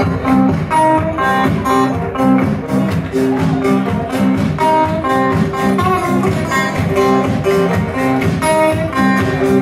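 A live trio playing an instrumental passage: an acoustic guitar picks a repeating riff over an upright double bass walking low notes, with drums keeping a steady beat.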